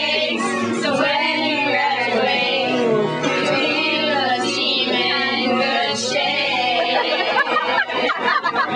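A group of young women singing a humorous tribute song together. Near the end the steady singing breaks up into choppier voices.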